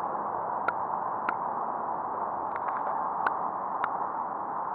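Steady hiss of open-air background noise, with a handful of short sharp clicks scattered through it.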